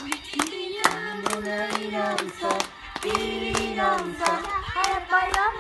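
Children clapping their hands in time with a sung children's clapping song. The claps are sharp and frequent, over held, melodic sung notes.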